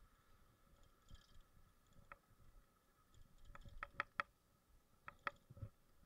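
Near silence with a faint steady tone and a few sharp clicks and rattles from the bicycle as it rides: a quick run of four clicks about halfway through and two more near the end.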